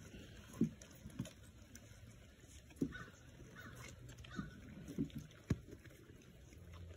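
Fainting goats eating corn on the cob and vegetables off a wooden board: irregular crunches and knocks as they bite, chew and bump the cobs, a few of them sharper than the rest.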